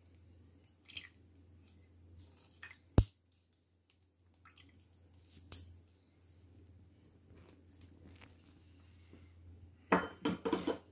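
Metal spoon pressing soaked hibiscus petals against a mesh strainer over a saucepan: soft squelching with occasional sharp clicks of spoon on metal, the loudest about three seconds in. A quick run of clinks near the end as the strainer is taken off the pan.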